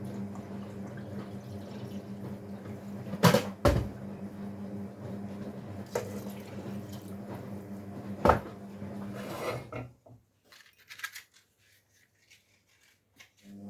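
Washing machine running with a steady hum, under a few sharp clinks and knocks of kitchen dishes and pots, loudest about three seconds in and again near eight seconds. The hum cuts off for the last few seconds, leaving faint clicks.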